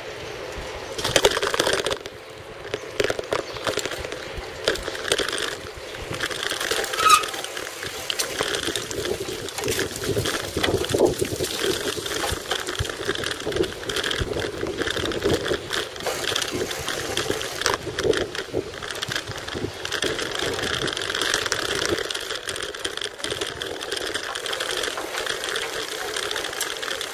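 Bicycle being ridden over town paving: a steady rattle with many small knocks throughout.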